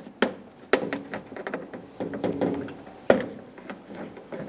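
Plastic window guides on a Jeep Wrangler half door being popped loose with a plastic trim tool and handled: a run of sharp plastic snaps and clacks, each ringing briefly. The loudest come about a quarter second in, near one second in and about three seconds in.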